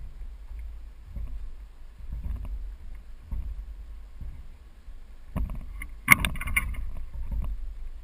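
Air rushing over a GoPro's microphone as it rides a spinning ceiling fan blade: a low, gusty rumble that swells about once a second with each turn of the fan. About five and a half seconds in, a louder, sharper clatter cuts in and lasts about a second and a half.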